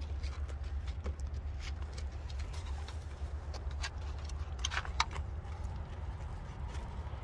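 Small clicks and rustles of hands working inside a cardboard box around a car battery and its wires, over a steady low hum.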